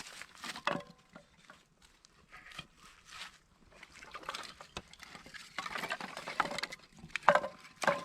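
Irregular rustling and scraping with a few light clinks of cooking gear, two sharper metallic clinks near the end.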